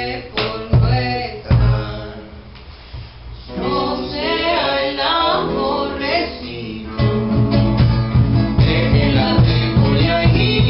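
A song: a voice singing over acoustic guitar, with the accompaniment growing fuller and louder about seven seconds in.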